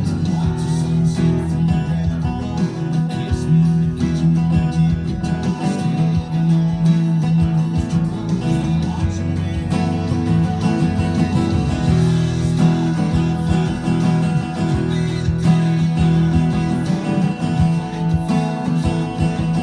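Small-bodied steel-string acoustic guitar strummed in a steady, continuous rhythm: an instrumental passage with no singing.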